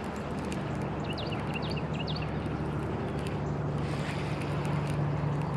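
Outdoor pond-bank ambience: a steady low hum under a noisy background, with a few short high bird chirps about one to two seconds in and faint scattered ticks.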